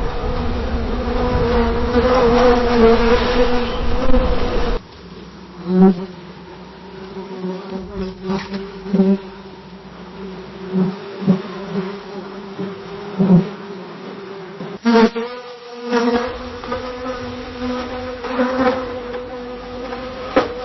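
A bee buzzing in flight, a steady drone that changes pitch as one recording cuts to the next about five seconds in and again about fifteen seconds in. In the middle stretch it swells loudly several times as the bee passes close.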